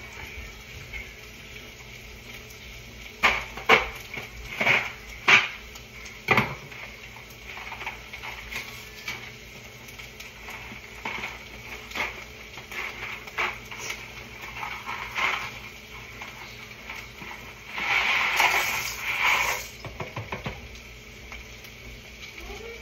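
Kitchen handling at a stovetop: a run of sharp knocks and clatters as cookware and packages are picked up and set down, then about two seconds of paper rustling near the end.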